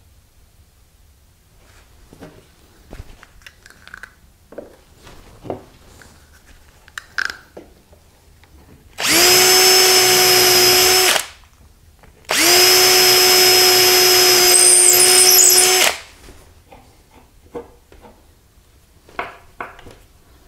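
Cordless drill run in two steady bursts, about two seconds and then three and a half seconds long, with an even motor whine, boring holes through a clamped drilling jig into a wooden panel. Faint taps and clicks of hand work come before and after the drilling.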